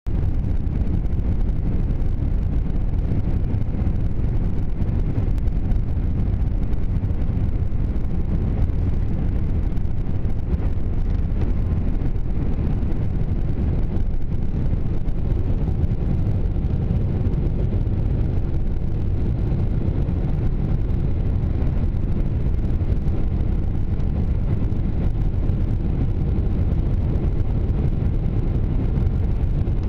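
Jet airliner's engines at takeoff thrust, heard inside the cabin as a steady, loud low rumble through the takeoff roll, liftoff and initial climb.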